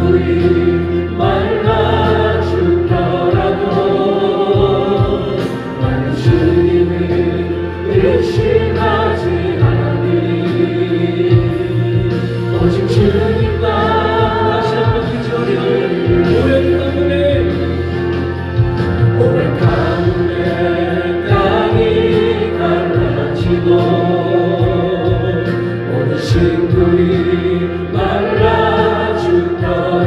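Background choral music: a choir singing a slow hymn-like song with vibrato over sustained low accompaniment chords.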